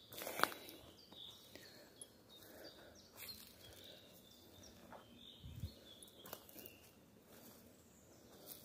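Quiet forest floor: scattered faint crackles and rustles of footsteps on twigs and leaf litter, with one soft low thump about halfway through.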